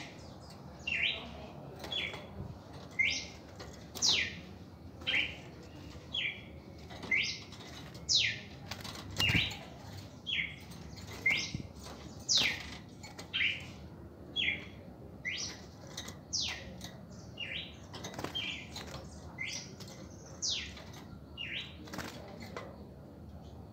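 Caged red-crested cardinals calling: short, sharp high notes repeated about once a second, with wing flapping as a bird flutters around the wire cage.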